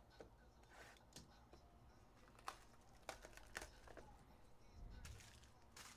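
Faint handling noises of a cardboard trading-card hobby box: scattered light clicks, taps and rustles as it is handled and opened.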